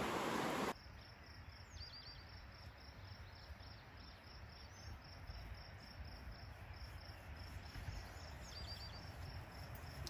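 Rushing creek water, loud, cutting off abruptly under a second in. Then an insect chirping in a faint, steady pulsing rhythm, about two to three chirps a second. A bird gives a quick run of four short notes twice, about two seconds in and near the end.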